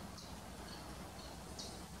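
Wild birds chirping faintly: a few short, high notes over a steady low background rumble.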